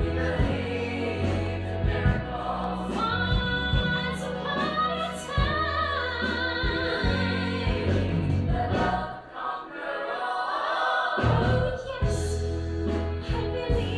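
A stage song: singing over musical accompaniment with a steady bass line. The bass drops out briefly a little past the middle, then returns.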